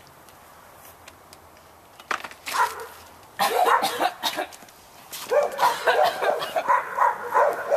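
People gagging and retching with loud, strained vocal noises after a mouthful of sand cookie, starting about two seconds in and coming in repeated outbursts.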